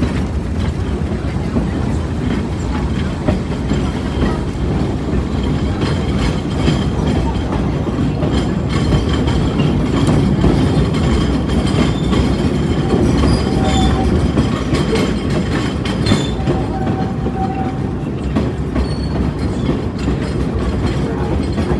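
Train car rumbling steadily along the track, with the clickety-clack of its wheels over rail joints, heard from aboard the train.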